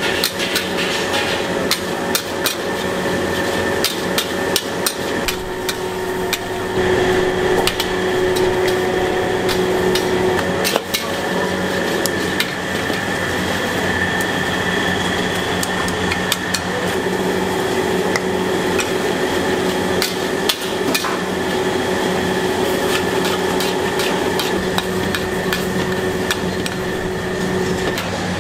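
Metal cooking tool repeatedly clanking and striking against a wok, many sharp irregular strikes, over a steady mechanical hum.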